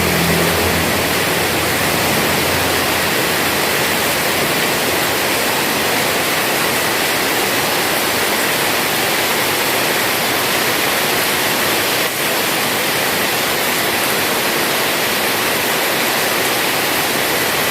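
Heavy rain falling in a steady, even hiss. A low hum fades out in the first second or so.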